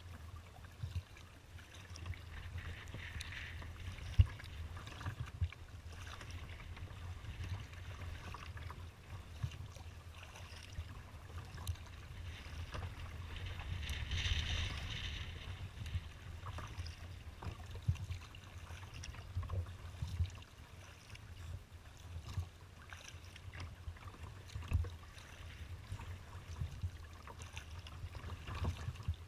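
Choppy water sloshing and slapping against a kayak's hull, with swelling washes of spray, a steady low wind rumble on the microphone, and a few sharp knocks, the loudest about four seconds in.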